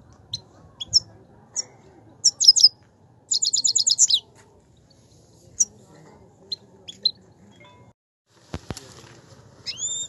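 Himalayan goldfinch singing: fast runs of high, twittering notes a little after two seconds and again from about three to four seconds in, with single chirps scattered between them. Two sharp knocks come near nine seconds in, and a rising chirp near the end.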